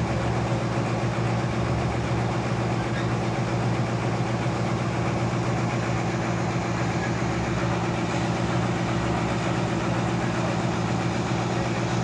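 Sawmill engine idling steadily, a low even hum, while the band saw is not cutting.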